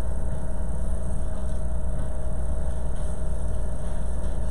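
Steady low hum with a faint higher tone above it, unchanging throughout; no speech.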